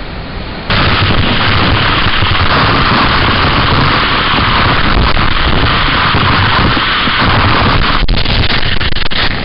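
Roar of a waterfall's spray pouring straight onto the camera's microphone, jumping suddenly louder just under a second in and then holding steady, with a few sharp crackles near the end.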